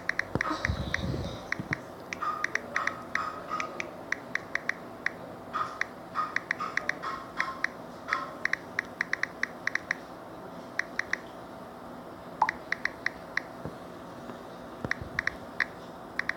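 Smartphone on-screen keyboard making its key-click sound as a message is typed: quick runs of short taps, broken by brief pauses.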